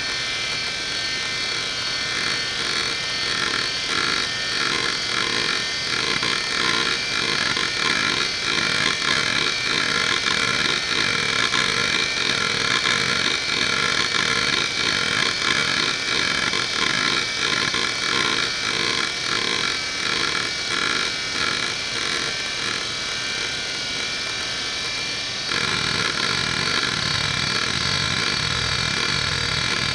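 Conner Peripherals CFS850A 3.5-inch hard drive seeking nonstop under a seek-test program. The head actuator chatters in a rapid, uneven train of clicks over the steady whine of the spinning platters. About 25 seconds in, the seek noise changes and grows fuller and lower.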